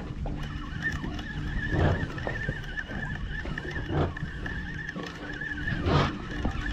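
Spinning reel being cranked to wind in line, giving a steady, slightly wavering whine. Low knocks come about every two seconds under a low rumble.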